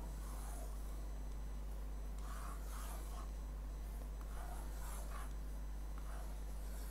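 Faint scratching and rubbing over a steady low electrical hum, with a few short scrapes clustered from about two seconds in to past the five-second mark.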